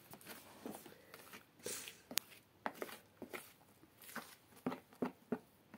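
A spoon being worked through thick cake batter in a plastic mixing bowl, with scattered light clicks and scrapes against the bowl and one sharp click about two seconds in.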